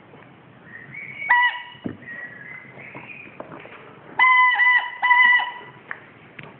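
Squeaky pet toy squeaking: one short squeak a little over a second in, then a quick run of about four squeaks near the end, with fainter squeaks in between.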